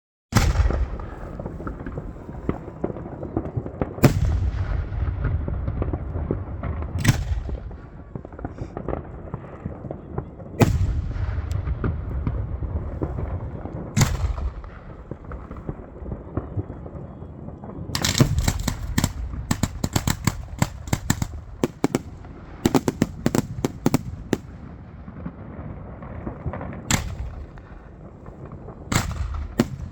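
Fireworks going off: single sharp bangs every few seconds, each with a rumbling tail, and two runs of rapid crackling bangs in the middle.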